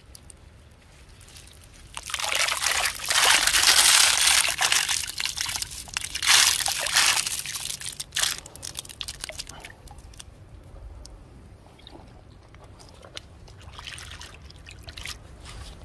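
A mesh net full of freshwater snails being dunked and swished in shallow water, with loud sloshing and water pouring through the mesh for several seconds; it then settles to light trickling and small splashes as a hand sifts through the snails near the end.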